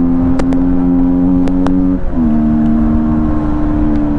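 Yamaha MT15's single-cylinder 155 cc engine, breathing through an open air filter, running loudly at steady revs. The pitch shifts slightly about halfway through, and there are a few sharp clicks in the first half.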